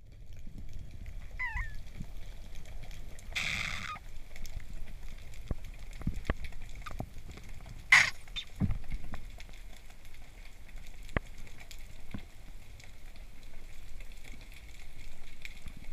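Underwater ambience picked up by a camera in the sea: scattered clicks and crackles over a faint steady hiss, with a brief hiss about three and a half seconds in and one sharp loud click about eight seconds in.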